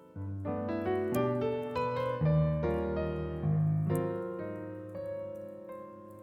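Background piano music: a slow melody of struck notes that ring and fade over bass notes.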